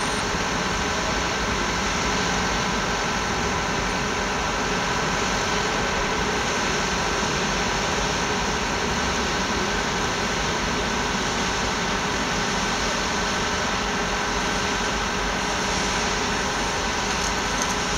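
A steady, unchanging mechanical hum with several fixed tones over an even rushing noise.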